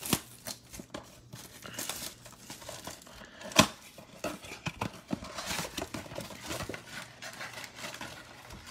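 Plastic shrink-wrap crinkling and tearing as a trading-card blaster box is unwrapped and its cardboard handled, in many small irregular crackles and scrapes. One sharp crack stands out about three and a half seconds in.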